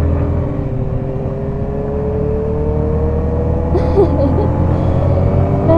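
Yamaha XSR125's single-cylinder engine running while riding, its pitch climbing slowly as it gathers speed, over a steady low road and wind rumble.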